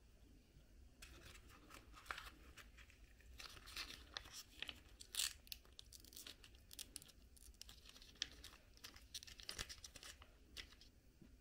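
Soft plastic cosmetic tube handled and squeezed into the palm: faint, dense crinkling and clicking that starts about a second in, is loudest about five seconds in, and stops shortly before the end.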